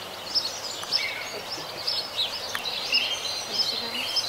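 Small birds chirping and twittering in a dense, continuous chatter of short high calls and whistles.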